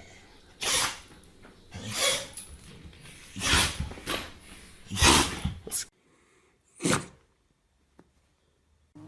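A pet sneezing over and over: about five short, sharp sneezes a second or so apart, then, against a quieter background, one more sneeze about seven seconds in.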